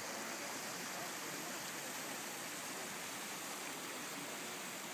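Fast-flowing stream rushing over stones, a steady even rush of water.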